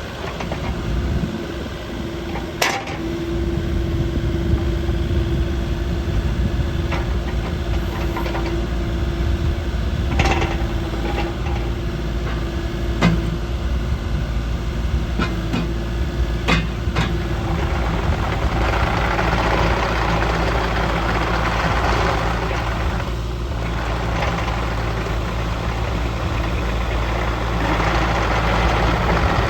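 Kubota U48-5 mini excavator's diesel engine running steadily with a held whine and a few sharp clanks. About two-thirds of the way in, a louder hissing joins.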